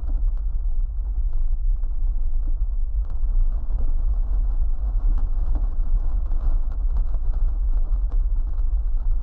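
Steady, deep rumble of a powder avalanche pouring down a mountainside, loud and unbroken.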